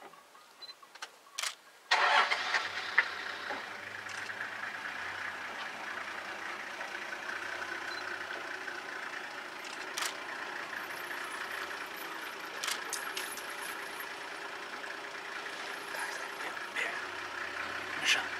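A vehicle engine starting about two seconds in, then idling steadily, preceded by a couple of sharp clicks.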